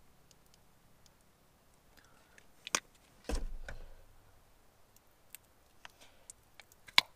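Food containers being handled on a pickup tailgate: scattered light clicks and clinks, a dull thump about three seconds in as a sour-cream pouch is set down on the tailgate, and a sharp click, the loudest sound, near the end.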